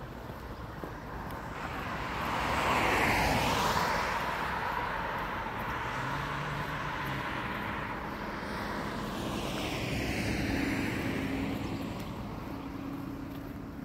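Passing motor traffic: a broad rushing that swells about three seconds in and again around ten seconds in, then fades.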